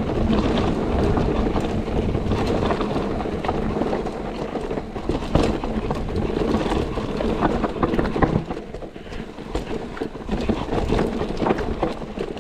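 Enduro mountain bike running down a rough trail: tyres rolling over dirt and rocks under a steady rumble of wind on the microphone, with many sharp knocks and rattles from the chain and bike over bumps.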